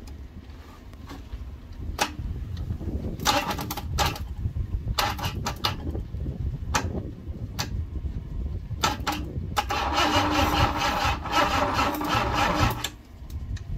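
Starter motor of a Ford Cortina Mk4's 2.3 V6 cranking the engine in several short bursts, then one longer burst of about three seconds near the end. The starter is being worked with a screwdriver across its terminals, and the owner suspects it is too weak to turn the engine over properly.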